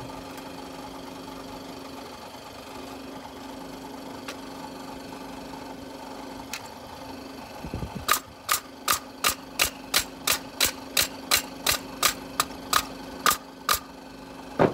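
An old Coleman air compressor runs steadily. From about eight seconds in, a freshly oiled Paslode pneumatic stapler fires staples into a block of wood in a fast, even run of sharp shots, about three a second.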